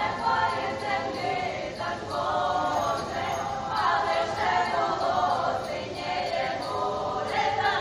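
A group of voices singing together in chorus on stage, several voice lines overlapping with no break.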